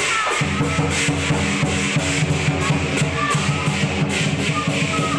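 Lion dance percussion: a big drum beating a fast, steady rhythm with crashing cymbals over it.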